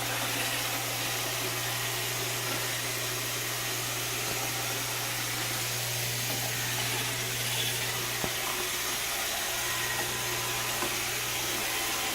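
Roomba 680 robot vacuum running on a hard floor: a steady motor hum with the hiss of its suction, and a few faint ticks late on.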